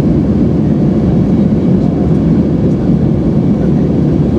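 Steady, loud cabin noise of an Airbus A319-132 climbing out after take-off: the deep rumble of its IAE V2500 turbofans and rushing airflow, heard inside the cabin at a window seat beside the wing.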